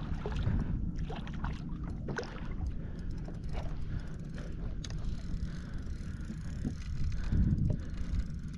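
Wind buffeting the microphone over water, with scattered small splashes and knocks around a kayak.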